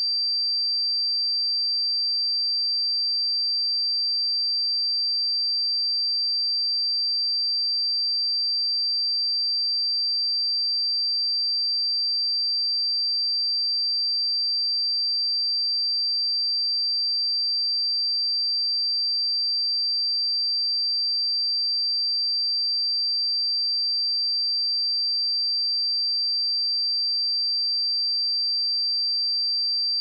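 A pure sine-wave test tone at 4694 Hz, held at one steady high pitch and level without a break.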